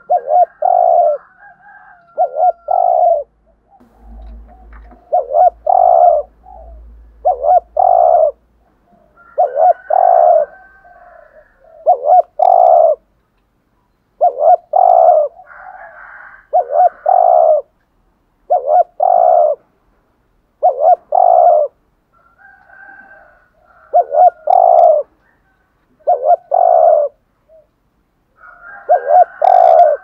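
Spotted dove cooing: short low coo notes, mostly in pairs, repeated about every two seconds, with fainter higher notes between the phrases.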